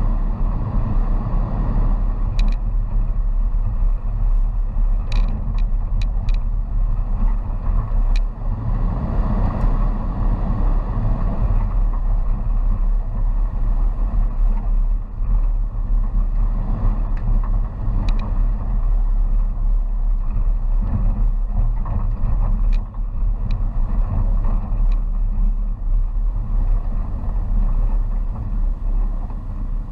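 2006 Jeep Wrangler Unlimited's 4.0-litre straight-six engine running with the tyres on a rough dirt road at low speed: a steady low rumble with a few sharp clicks and rattles along the way.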